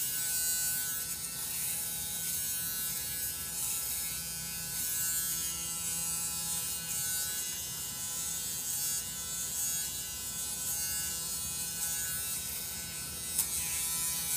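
Electric foil shaver running steadily while being drawn over the face and chin, a constant motor tone with a high hiss of the cutters. A short sharp click comes near the end.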